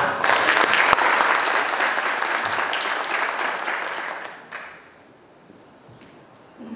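Audience applauding in a large hall, dense clapping that fades out about four and a half seconds in.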